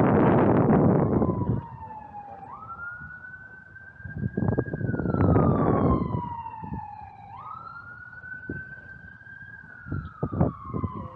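An emergency vehicle's siren wailing, its pitch jumping up quickly and then sliding slowly down, over and over about every five seconds. A loud rush of noise covers the first second and a half and swells again briefly near the middle.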